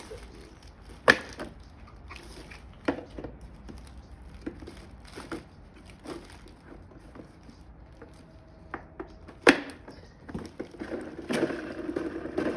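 Plastic knocks and clicks as the wheels are fitted onto a SunJoe SPX2680-MAX electric pressure washer, with two sharp loud snaps, one about a second in and one about three seconds before the end, and busier handling noise near the end.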